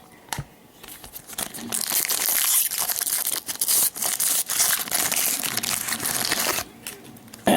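A 2012/13 Panini Prizm basketball card pack's wrapper being crinkled and torn open, a dense crackling rustle that lasts about five seconds and stops abruptly.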